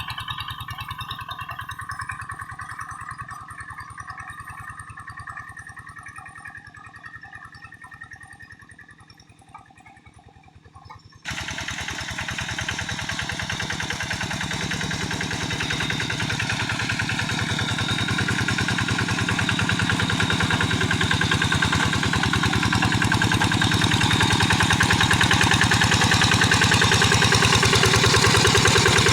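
Quick G1000 hand tractor's single-cylinder diesel engine running with an even pulse, cutting in suddenly about eleven seconds in and growing steadily louder. Before that, a quieter sound with steady tones fades down.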